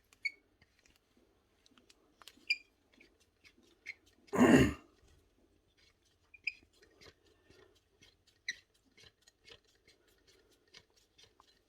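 Light clicks and squeaks of metal parts being handled as a planer motor armature is clamped in a bench vise, with one louder knock about four and a half seconds in.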